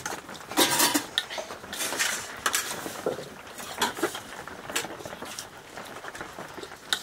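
Dishes and utensils clinking and scraping in short, scattered knocks, with a louder scrape a little under a second in.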